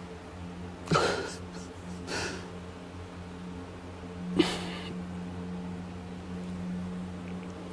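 A man's short breaths and sniffs close to a clip-on microphone, three of them about one, two and four and a half seconds in, over a steady low electrical hum.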